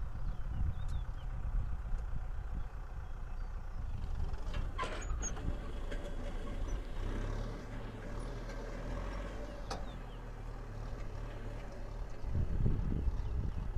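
Kubota M6040SU tractor's four-cylinder diesel engine running steadily under load while pulling a disc harrow through dry field soil, swelling briefly louder near the end.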